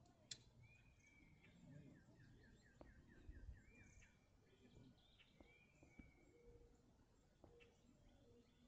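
Faint birdsong: short slurred whistled notes heard several times, with a quick trill of about a dozen repeated notes in the first few seconds. A single sharp click comes just after the start.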